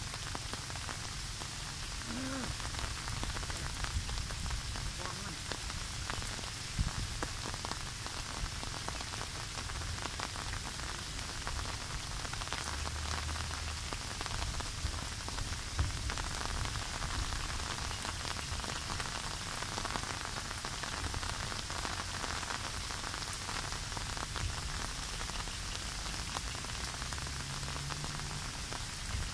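Steady heavy rain falling on grass and muddy floodwater, with a low, uneven rumble of wind gusting on the microphone.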